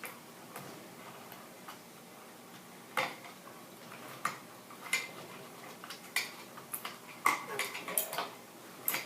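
Small metal clicks and clinks of wires, wire connectors and the fan's metal bracket being handled as the wiring is tucked into the ceiling box. Irregular knocks, a few apart early on and coming closer together in the last few seconds.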